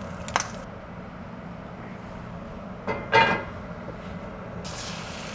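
A fork clinks against a cast iron skillet as bacon is lifted out, then about three seconds in the heavy skillet clangs briefly as it is moved on the stove grate. Faint sizzling of hot bacon grease is heard at the start and again near the end, over a steady low kitchen hum.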